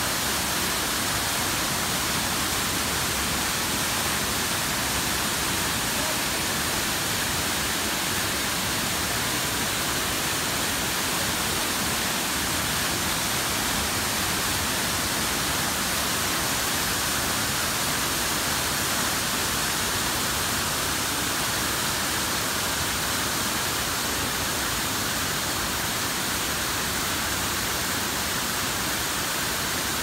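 Waterfall, heard close: water pouring over a rock ledge and crashing onto the rocks below in a steady, unbroken rush.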